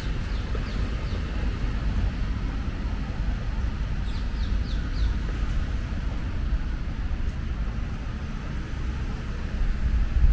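Steady low rumble of city traffic, with a small bird chirping over it in short falling notes: a few right at the start and a quick run of four about four seconds in.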